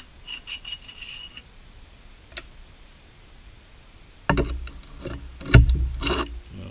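A few light clicks, then from about four seconds in a cluster of louder knocks and clunks: tools and metal parts being handled at a lathe.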